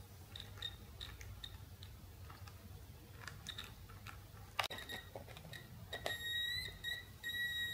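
High-pitched whine of an electroluminescent panel driven by its battery inverter, coming on about six seconds in as the wires poked onto the damaged panel make contact and it lights, with a short dropout a second later. Before that, scattered small clicks and crackles of the wire contacts, with the whine flickering in faintly and cutting out.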